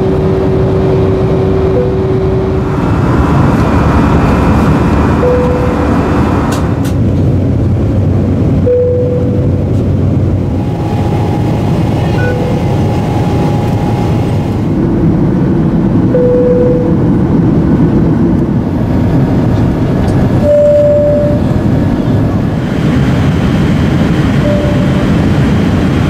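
Airliner cabin seatbelt-sign chimes: a string of short single "bing" tones, one every three or four seconds, each from a different aircraft, over the steady roar of cabin air and engine noise that changes from clip to clip.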